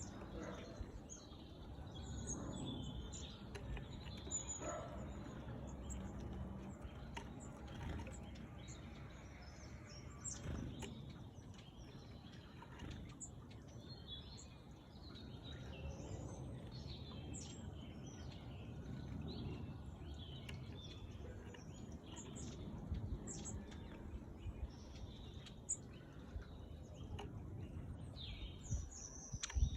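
Tits calling, with many short high chirps scattered throughout over a low background noise.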